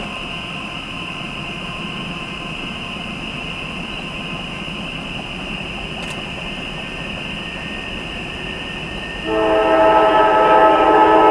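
Locomotive air horn sounding a loud chord of several tones, starting about nine seconds in over a steady background hiss. It is a Norfolk Southern train approaching the crossing.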